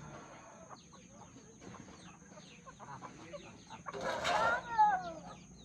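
Desi chickens clucking in short, repeated calls, with one loud squawk about four seconds in.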